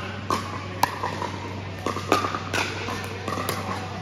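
Pickleball rally: sharp pops of paddles striking the plastic ball and the ball bouncing on the court, several a second, each ringing briefly in the hall, over a steady low hum.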